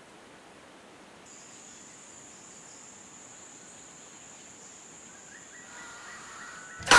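Quiet forest background with a steady, high, thin insect whine starting about a second in. At the very end, a male white bellbird's extremely loud call begins abruptly.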